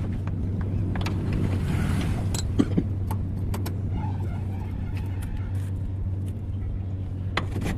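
A vehicle engine idling steadily, with a few sharp metallic clinks and knocks over it.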